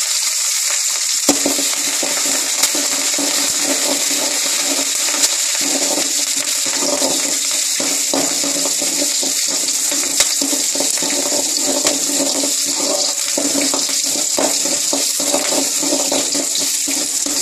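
Mustard seeds, dals and green chillies sizzling in hot oil in a metal kadai, a South Indian tempering frying. A metal spoon stirs and scrapes through them from about a second in, with a few sharp clinks against the pan.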